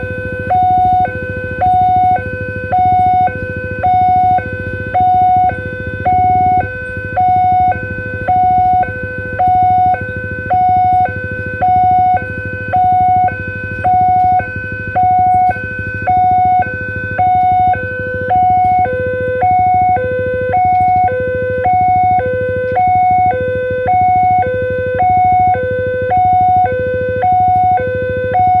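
Railway level-crossing alarm sounding a fast electronic two-tone siren, a high tone and a low tone alternating steadily, about one high-low pair a second. Under it runs the continuous rumble of a passenger train's wheels rolling over the rails as it passes the crossing.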